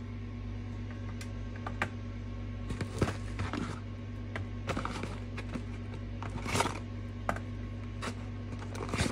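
Frozen fish fingers being set down one by one on a metal baking tray, each a short light knock, with the rustle of the cardboard box they are pulled from. A steady low hum runs underneath.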